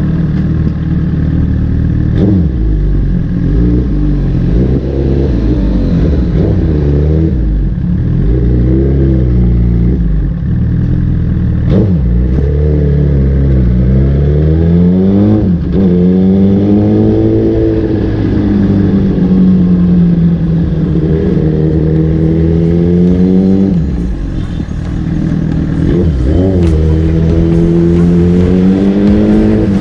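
Suzuki GSX-R1000's inline-four engine running under way, its pitch rising and falling again and again as the throttle is opened and closed through the ride.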